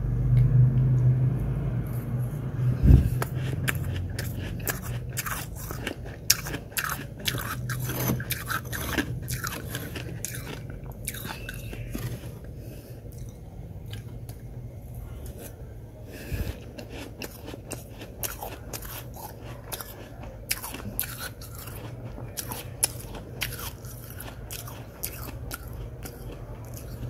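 Freezer frost being crunched and chewed close to the microphone: many irregular sharp crunches over a low steady hum.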